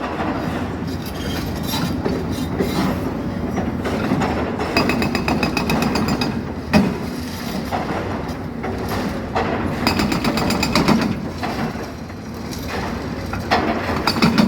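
Hydraulic breaker on an excavator hammering rapidly in bursts of a couple of seconds, over a steady low rumble, with one sharper strike about halfway through.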